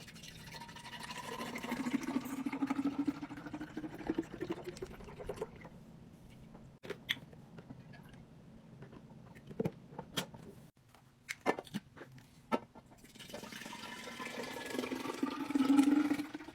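Liquid poured into a container twice, its pitch rising steadily as the container fills. Between the two pours come several sharp clicks and knocks of containers being handled.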